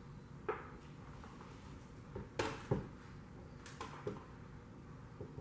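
Scattered knocks and clunks of a compound bow being set down and handled on a desk, the loudest about halfway through.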